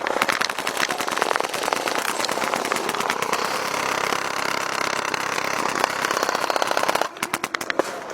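Airsoft gunfire: a rapid, continuous stream of sharp shots on full auto, which thins to a few scattered shots about seven seconds in.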